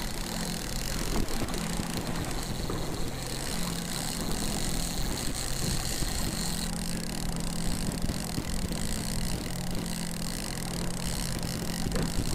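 Boat motor running steadily, with wind noise on the microphone.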